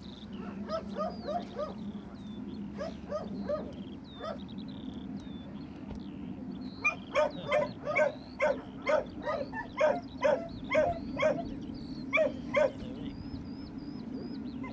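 A dog barking repeatedly in quick runs, about three barks a second, with short runs early on and a longer, louder run from about seven seconds in. A steady low background noise runs underneath, with faint high bird chirps.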